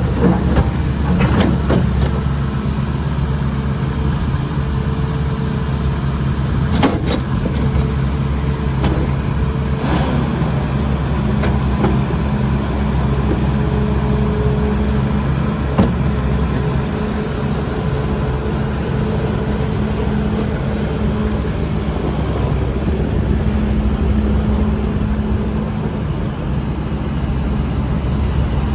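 Bobcat S650 skid steer loader's 74 hp Kubota diesel engine running steadily, with a few sharp clanks along the way.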